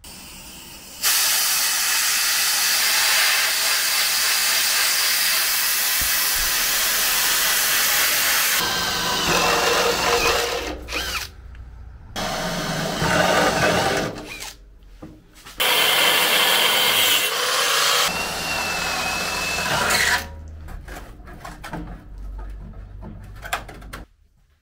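A handheld power tool running: one long steady run of about seven seconds, then three shorter bursts with brief stops between them, with a faint whine in the later bursts.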